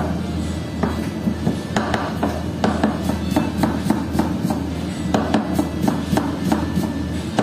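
Chef's knife chopping on a plastic cutting board: quick, uneven knocks of the blade as garlic is minced, then cuts into a red onion about midway. A steady low hum runs underneath.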